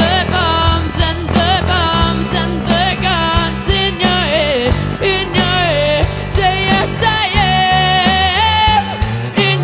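Rock band playing live: drum kit hits, steady electric bass, electric guitars through amplifiers, and a lead melody with a wide vibrato over them.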